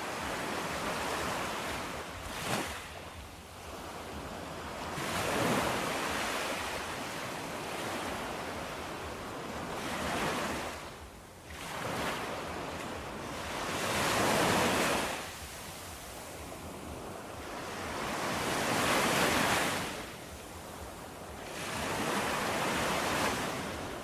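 Sea waves washing onto a shore, the surf swelling and falling back about every four to five seconds, with a brief sharp crack about two and a half seconds in.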